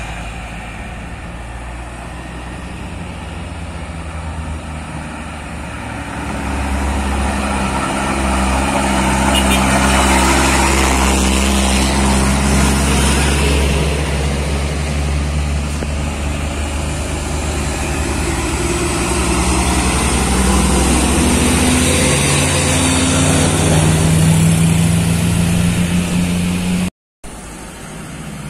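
Heavy loaded truck's diesel engine pulling up a hill, growing louder as it comes closer, its pitch rising later on. The sound cuts out briefly near the end.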